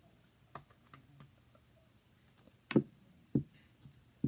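Small items being handled and set down on a table: a few light clicks, then two sharper knocks about half a second apart, and another knock near the end.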